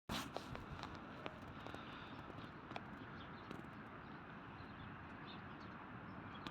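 Faint outdoor background noise with scattered light clicks and ticks.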